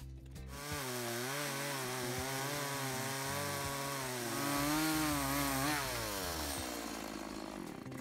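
Stihl chainsaw cutting through a freshly cut locust log, the engine running under load with its pitch wavering over the hiss of the chain in the wood. About six seconds in, the throttle is released and the engine pitch falls away as it winds down.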